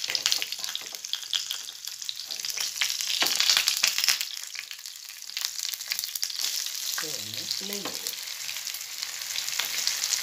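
Masala-coated vanjaram (seer fish) steak shallow-frying in hot oil in a small pan: a steady sizzle full of crackles, swelling about three and a half seconds in. A spatula and ladle scrape and shift the piece as it is turned over.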